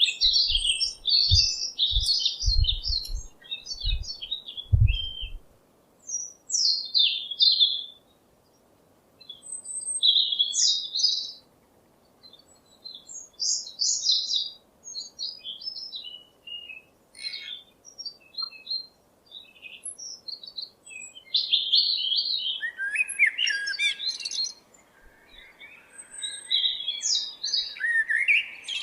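Small songbird chirping and twittering in short, quick phrases with brief pauses between them, busier near the end. A few low thumps come in the first five seconds.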